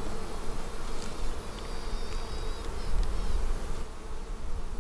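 Honeybee colony buzzing over an open hive, with a queen piping faintly through it: a thin high note of about a second, then a shorter toot, about a second and a half in. Piping of this kind is a queen's signal; the beekeeper takes it for a queen, or two queens, fighting.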